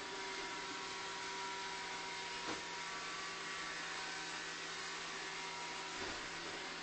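Steady low hiss with a faint hum, like room tone or a small machine in the background, broken by two soft knocks, one about two and a half seconds in and one near the end.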